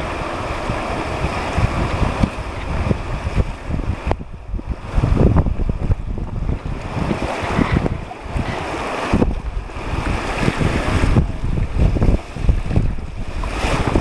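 Wind buffeting the microphone of a waterproof video camera on a river raft, over the rush of moving water, coming and going in uneven gusts.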